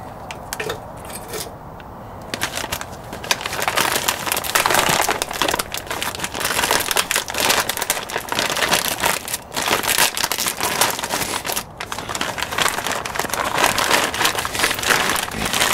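Plastic wrapping being crinkled and pulled off a new wheel hub assembly: a dense, continuous crackling that starts about two seconds in.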